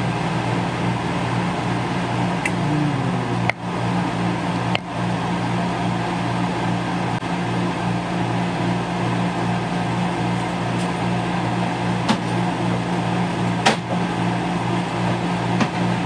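Fans, dehumidifiers and air conditioning of a shipping-container hydroponic farm running together: a steady loud whir over a low electrical hum. A few short clicks sound now and then.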